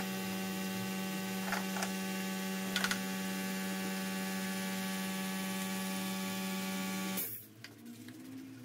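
Steady electric hum with many overtones and a few faint clicks, cutting off suddenly about seven seconds in.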